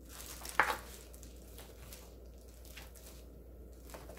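Chef's knife cutting through stacked fish cake sheets and knocking on a cutting board: one sharp knock about half a second in, then a few faint taps.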